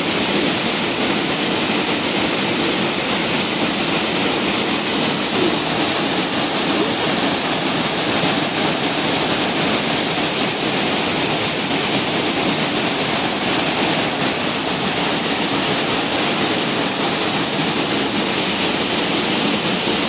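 Waterfall pouring into a pool, with water rushing over rocks: a steady, even rush of water.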